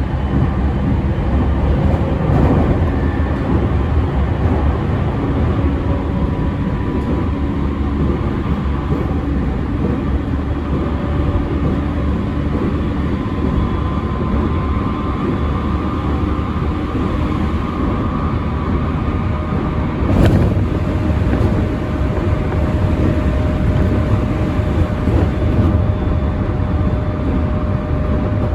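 Running noise inside the motor car of an unrenewed JR E231 series 1000 electric train: a steady rumble with a strong low hum, which the uploader says is heavier than usual on this car, and faint tones from the traction motors and inverter. A single sharp knock comes about twenty seconds in, after which a steady tone holds.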